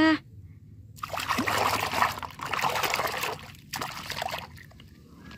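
A hand swishing and splashing through a plastic basin of soapy water, in two stretches, the second one shorter.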